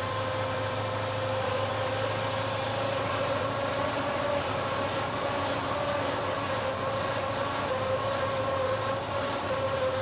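Small gas engine of a Ford CL 340 skid loader running steadily, with its hydraulic pump giving a constant high whine over the engine's hum.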